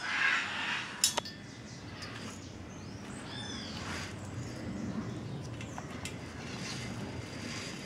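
Bicycle roller chain and freewheel ratchet sprockets handled by hand as the chain is lifted off: light metallic clinks and rattling, with one sharp click about a second in. Faint bird chirps in the background.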